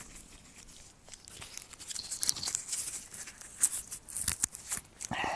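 Dry wood chips and tinder being snapped and handled: a run of quick crackles and sharp snaps that gets busier after about a second and a half.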